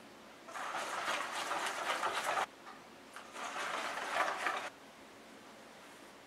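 A silicone whisk beating a thin egg batter in a stainless steel bowl: a burst of fast wet whisking for about two seconds, then after a short gap another of a little over a second, each cutting off abruptly.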